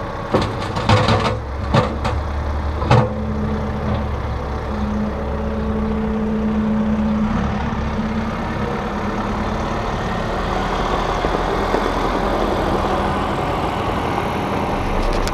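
Massey Ferguson 1759 compact tractor's diesel engine running steadily as the tractor raises its loader bucket and drives past, with a few sharp knocks in the first three seconds. The engine grows louder in the second half as the tractor comes close.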